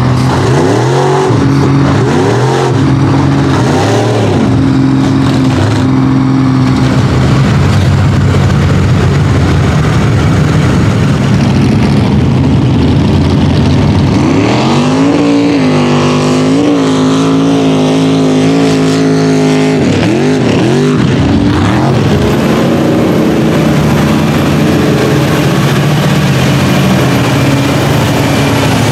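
Big engines of lifted mud trucks revving hard while pushing through a mud pit. Revs climb and fall again and again, with one long high-rev pull held for several seconds in the middle before it drops off.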